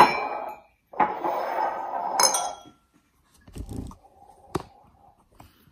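Porcelain mugs and bowls clinking and scraping as they are set down and shifted on a table, with a sharp ringing clink at the start and another about two seconds in. A dull knock and a click follow near the middle.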